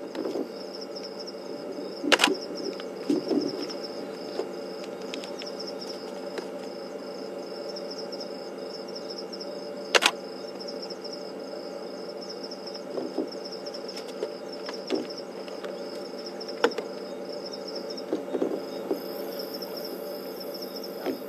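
Night crickets trilling steadily in a high continuous chorus over a low steady hum, broken by two sharp clicks, about two seconds in and about ten seconds in.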